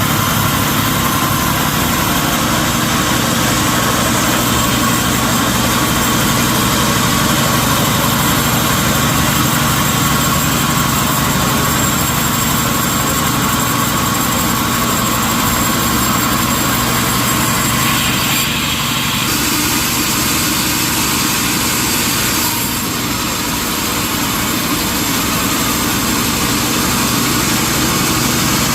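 Sawmill machinery running steadily: a loud, continuous engine-like drone with a thin high whine. The sound changes a little about two-thirds of the way through and then drops slightly in level.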